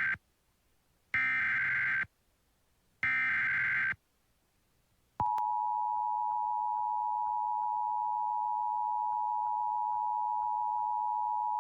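Emergency Alert System SAME header: the tail of one digital data burst, then two more bursts each about a second long, warbling and screechy. After a short gap, about five seconds in, the EAS two-tone attention signal starts as a steady, loud dual-pitch tone and holds. Together they announce an emergency alert, here a flash flood warning.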